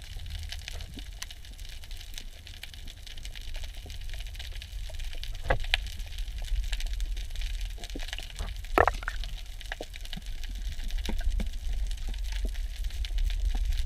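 Underwater ambience picked up by a camera in a waterproof housing: a low muffled rumble under a constant crackle of small clicks, with a few louder knocks, the loudest about nine seconds in.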